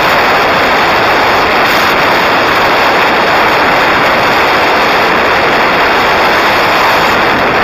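Loud, steady rush of wind over the microphone of a camera mounted on the outside of a moving car.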